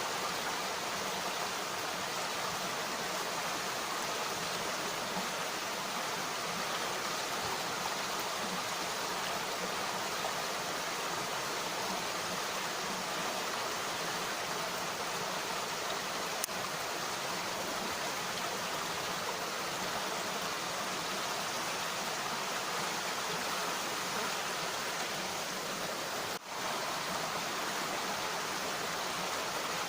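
Mountain stream flowing: a steady rush of water, with a brief dip in level about three-quarters of the way through.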